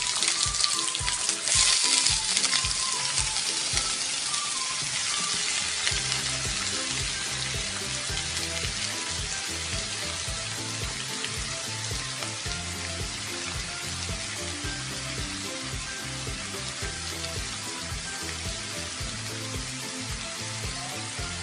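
Sliced onions frying in hot coconut oil in a pan, a dense sizzle that is loudest in the first couple of seconds and then slowly settles quieter.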